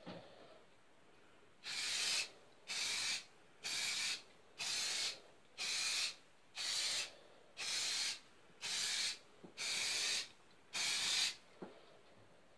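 Ten short, even bursts of hissing spray, about one a second, beginning a couple of seconds in.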